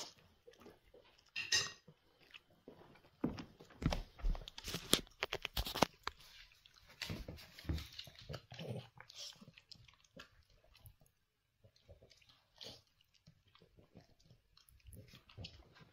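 A dog chewing and licking, with a run of sharp clicks and knocks about three to six seconds in and scattered smaller ones after.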